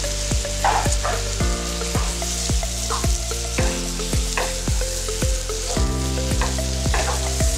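Sliced onions, tomatoes and cashews sizzling in oil and butter in a non-stick frying pan while a wooden spatula stirs them. Background music with a steady beat plays throughout.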